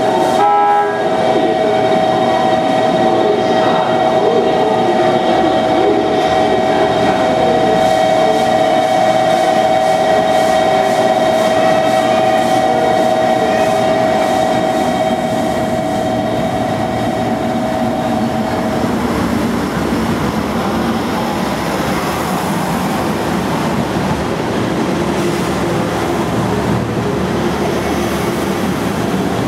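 Yufuin no Mori diesel express train at a station platform, with a long steady two-note tone, after a short rising run of notes, sounding over the train for the first eighteen seconds or so. After the tone stops, the diesel railcars rumble steadily as the train moves off along the platform.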